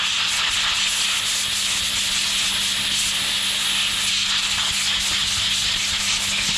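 Compressed-air blow gun giving one steady, unbroken hiss as it blasts air over a MAP sensor, drying it off and blowing cleaning liquid out of the sensor's small ports.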